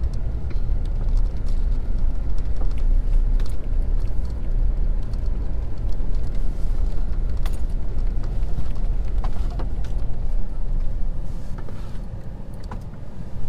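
Steady low engine and road rumble of a vehicle driving slowly, heard from inside the cab, with a few faint scattered ticks.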